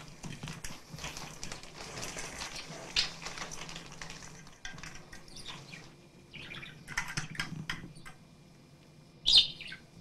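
Pet budgerigar chirping amid rustling and handling knocks. A loud sharp squawk comes near the end.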